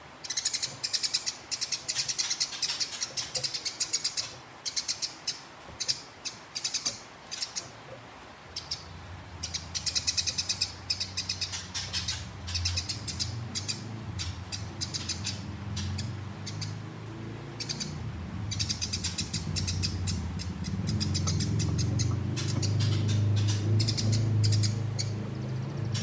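Eurasian tree sparrow giving long, rapid runs of sharp chirps in several bouts: the chattering fighting call of an agitated male. A low hum builds up in the second half.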